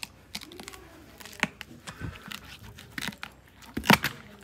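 Shire horse biting into and chewing a large raw carrot: irregular wet crunches and tearing, the loudest cluster about four seconds in, with a deep bass sound from the jaw under the teeth.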